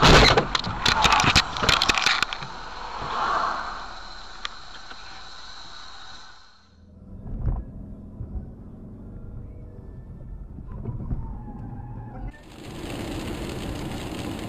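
Dashcam sound of cars on the road. In the first two seconds a run of loud knocks and bangs; then a steady low rumble of the car in motion, with a single bump about halfway. After a cut about twelve seconds in, a steady hiss of rain and tyres on a wet road.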